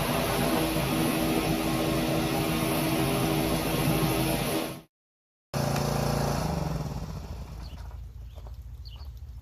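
An engine running steadily under a loud hiss. It cuts out dead about halfway through, comes back, then fades away, leaving faint bird chirps.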